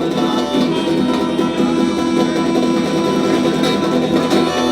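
Live band music: strummed guitar over washtub bass and washboard.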